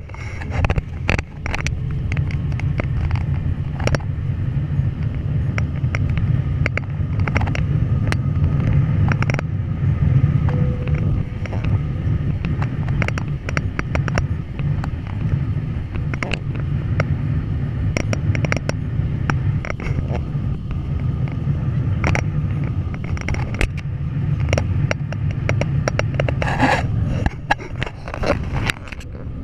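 Steady low rumble of jet airliner cabin noise during the descent, heard from a window seat over the wing. Frequent small knocks and scrapes, likely the camera against the window or its surround, come through the rumble and bunch together near the end.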